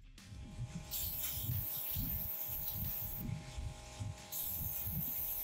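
Aerosol can of degreaser spraying, a hiss of about two seconds and then a second hiss starting near the end, over a low steady hum.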